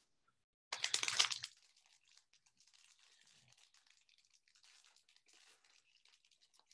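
Foil wrapper of a trading-card pack crinkling and being torn open by hand. There is a louder crinkling burst about a second in, then faint scattered crinkles as the wrapper is pulled apart.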